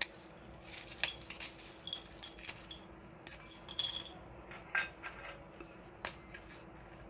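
Marie biscuits snapped into small pieces by hand: a quiet, irregular series of crisp snaps, with light clinks as the pieces drop into a glass bowl.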